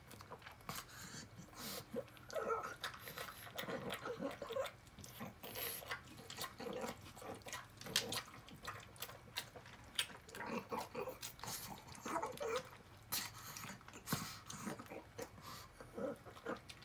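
A pug eating canned tuna from a ceramic bowl: irregular wet smacking, licking and chewing, with many short clicks as its mouth works against the bowl.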